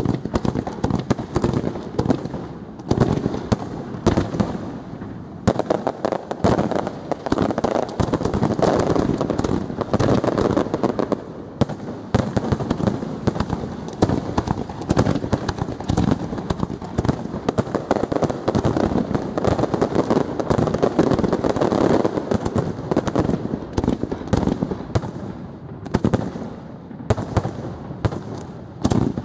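Professional aerial fireworks display at full pace: a dense, almost unbroken barrage of bursting shells and crackling, many bangs a second, thinning only briefly a few times.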